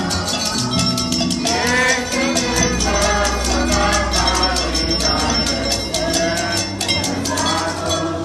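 Upbeat Latin-style music: a quick steady rattle beat over a bass line, with a melody.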